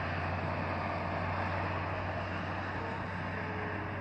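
Steady road traffic noise from cars passing on a multi-lane road, with a constant low hum underneath.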